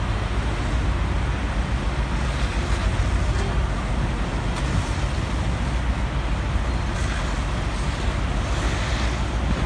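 Steady low rumble of a fire engine's diesel running its pump, with an even rushing noise over it.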